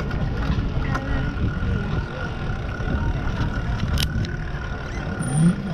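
Steady low rumble of wind and rolling noise from riding a bicycle, with a faint steady high whine and a single sharp click about four seconds in.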